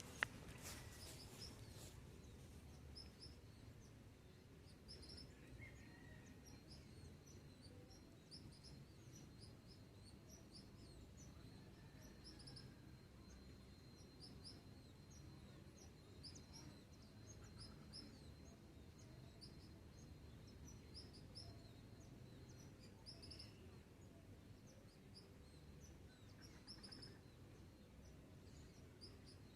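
Faint dawn ambience: small birds chirping, short high calls repeating throughout over a low background hiss. A thin, steady high tone runs through about the first half, and a single sharp click comes right at the start.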